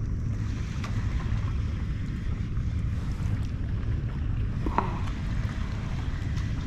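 Wind rumbling steadily on an outdoor action-camera microphone, with one short, sharp click about five seconds in.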